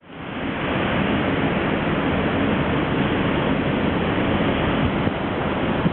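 Steady rushing noise with a faint low hum underneath, fading in over the first half second and then holding even.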